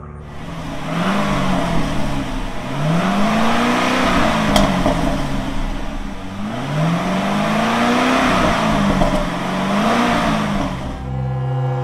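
Corvette V8 revving several times in a row, its pitch rising and falling with each rev, with one sharp click about four and a half seconds in.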